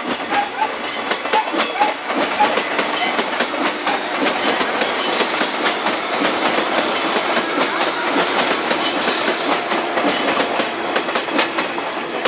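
Train running past with its wheels clacking rhythmically over rail joints.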